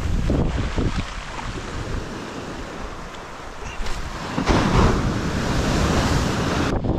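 Surf washing onto a beach, with wind buffeting the microphone; a louder wash of surf comes about four and a half seconds in.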